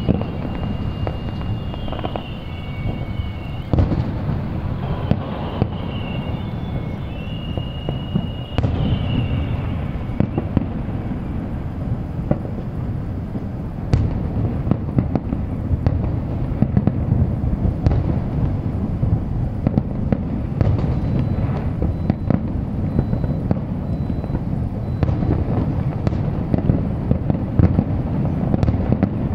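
Fireworks display heard from a distance: a continuous rolling rumble of many overlapping bangs and crackles, with the bangs coming thicker and sharper over the second half. High whistling tones sound over roughly the first ten seconds.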